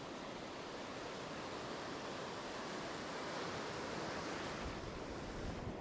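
Surf breaking and washing up a sand beach: a steady rush of waves and foam that swells a little midway, with a few low bumps near the end.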